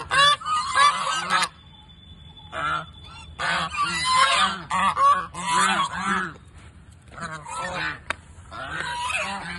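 A group of white domestic geese honking in overlapping bursts of repeated calls, with short quieter gaps between, as they beg for more food.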